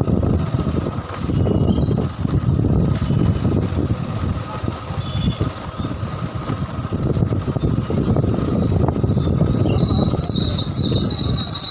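Wind buffeting the microphone over the rumble of a moving vehicle on the road, with a high warbling chirp near the end.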